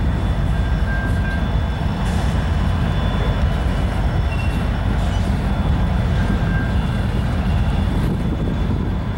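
Freight train cars rolling past on the track: a steady, loud low rumble of steel wheels on rails, with a few faint, brief high squeals.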